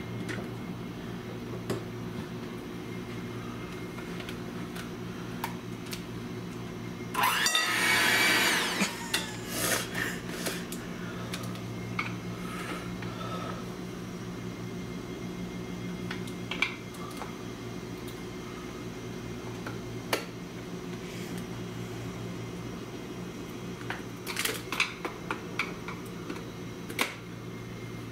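Electric hand mixer being handled and its metal beaters fitted, with scattered sharp plastic-and-metal clicks that cluster near the end. About a quarter of the way in comes a loud rushing burst of under two seconds, the loudest sound. A steady low hum runs underneath.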